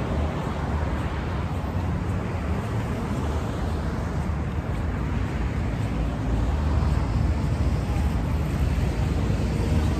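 Steady road traffic noise from a busy multi-lane street, a low rumble with no distinct events, getting somewhat louder about six and a half seconds in.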